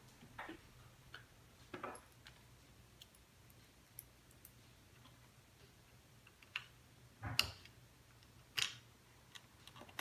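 Faint, scattered small clicks and taps of fingers handling a tiny metal M.2 standoff screw and the SSD at the motherboard's M.2 slot while trying to line the drive up, with a few louder clicks in the second half.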